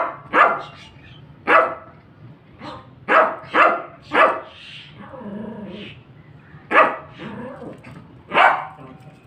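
Yorkshire terrier barking: about eight short, sharp barks in irregular bunches, with a longer gap just past the middle.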